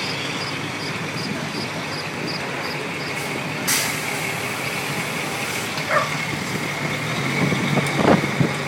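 Fire engines rolling slowly past, their diesel engines running, with a short sharp air-brake hiss a little under four seconds in. A steady high tone comes in about six seconds in, and a few knocks near the end.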